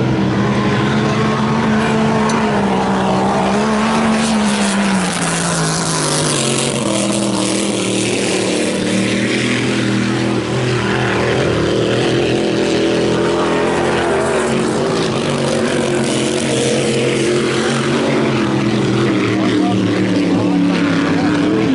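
Grand Prix hydroplane's supercharged Chevrolet V8 running hard at speed with a loud, steady engine note. Its pitch falls a few seconds in, then holds.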